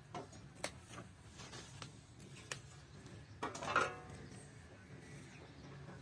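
Faint clicks and knocks of hand tools and boards being handled, with a brief louder metallic clink a little past halfway, over a low steady hum.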